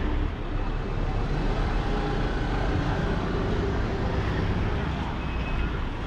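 Street traffic: cars driving past with engines running, over a steady rumble of road noise.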